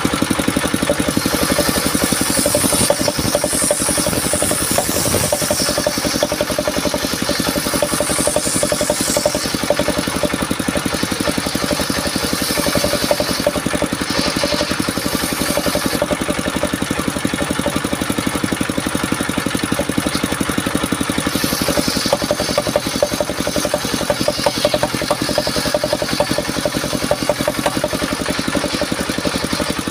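Engine of a mobile circular sawmill running steadily with a fast, even beat while its large circular blade rips timber into planks; a high hiss of the blade cutting wood comes and goes with the cuts.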